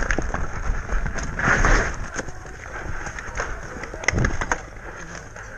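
A paintball player sprinting across dirt: running footsteps and the rattle of gear, with wind buffeting the microphone. A few sharp knocks come about four seconds in as he reaches cover.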